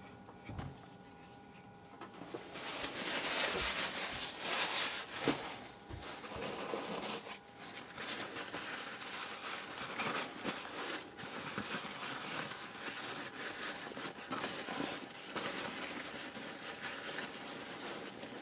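Thin white tissue paper rustling and crinkling as hands lift a wrapped plant from a cardboard box and unwrap it. The rustling starts about two seconds in and is loudest a second or two later.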